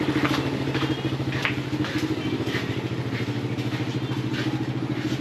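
Vehicle engine running at a steady speed with a fast, even pulse.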